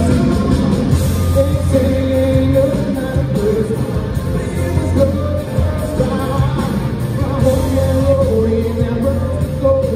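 Live country-rock band playing loudly, with electric guitars, bass and drums, and a man singing long held notes over them.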